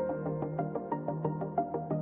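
Background music: a steady synthesizer track with quick repeated note attacks over sustained low notes.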